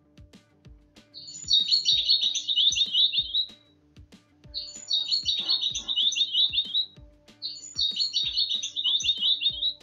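A songbird singing the same short phrase of quick high notes three times, each about two seconds long, over soft background music with a steady beat.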